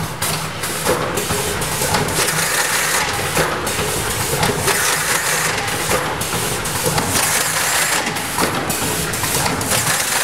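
Wexxar WF30 Gen 2 fully automatic case former running, forming corrugated cardboard cases: a steady mechanical din with frequent short clacks as blanks are pulled from the magazine and opened into cases.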